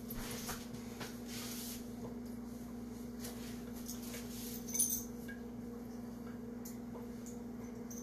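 Quiet room tone with a steady low electrical hum, soft rustling of a cloth towel being wrapped around wet hair, and one short clink about five seconds in.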